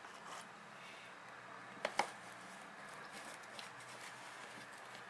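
Plastic containers being handled on a stainless steel worktop: two light clicks close together about two seconds in, over faint room noise.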